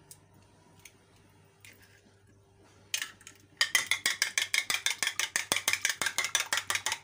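A metal spoon beating a raw egg on a ceramic plate: after a few faint taps, a fast, even clinking of the spoon against the plate starts about three and a half seconds in, at about seven strokes a second.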